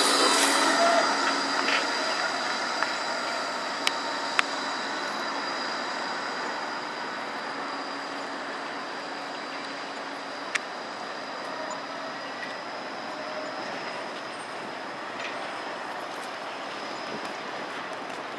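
Bombardier Flexity 2 light-rail tram rolling away over a curved track junction. Its running noise fades steadily, with a thin, high, steady wheel squeal on the curve and a few light clicks from the rails.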